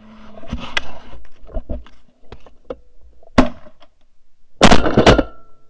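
Shotgun firing at Canada geese, heard from a camera mounted on the gun: a sharp shot about three and a half seconds in, then a louder blast about a second later. Knocks and clatter come before the shots.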